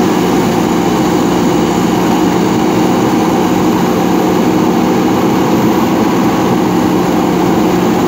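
JCB 3DX backhoe loader's diesel engine running steadily under hydraulic load as the backhoe arm lifts and swings a bucket of soil.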